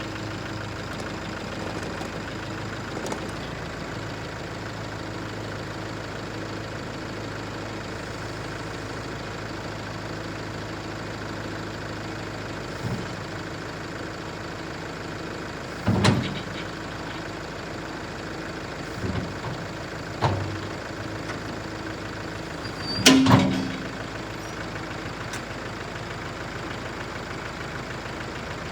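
Tractor engine idling steadily, broken by a few sharp knocks, the loudest about 23 seconds in and another about 16 seconds in.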